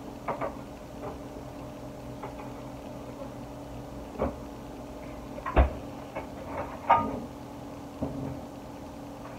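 Scattered knocks and clacks of someone working in a kitchen, the loudest a single thump a little past halfway, over a steady low hum.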